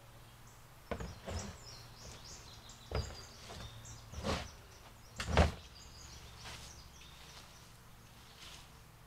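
A dump bin full of wood-chip mulch being knocked and banged as it is unloaded: five knocks, the loudest about five seconds in, over a faint steady low hum.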